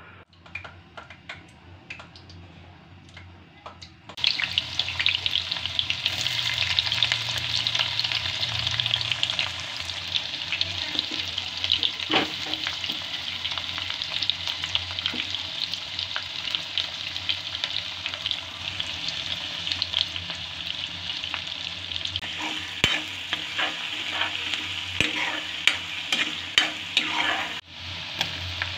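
Sliced onions and green chillies frying in hot oil in a wok. A steady sizzle starts suddenly about four seconds in, with sharp clicks and scrapes of stirring that are thickest near the end.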